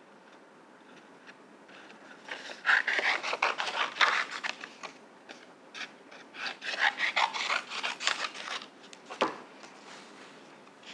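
Scissors cutting paper in two runs of crisp snips, each a few seconds long, then a single sharp knock on the table about nine seconds in.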